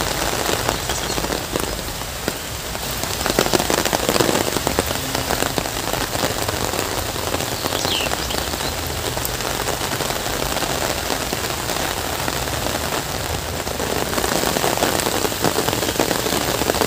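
Heavy rain falling steadily on leaves, grass and open water, a dense even hiss of countless drops.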